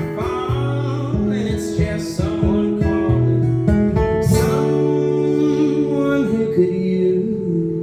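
Acoustic guitar closing out a folk song: strummed chords, then a final chord held and left ringing from about halfway through.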